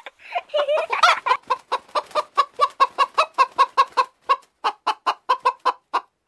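Hen clucking in a fast, even run of short clucks, about five a second, stopping shortly before the end.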